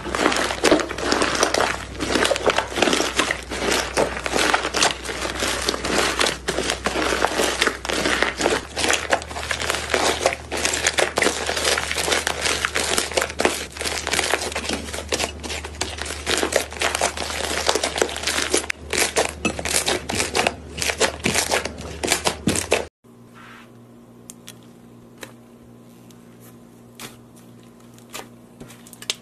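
Green slime being kneaded and squeezed by hand, giving dense, continuous crackling and crinkling. About two-thirds of the way through it cuts off sharply to a much quieter stretch of sparse little pops and clicks as fingers press into white slime studded with pink beads.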